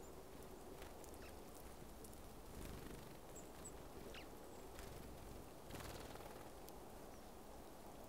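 Faint outdoor ambience at a winter seed feeder with small birds, brambling and tree sparrows: a low steady rumble, a few soft clicks, and two short high chirps about three and a half seconds in. A brief rustle a little before six seconds in is a sparrow's wings as it lands.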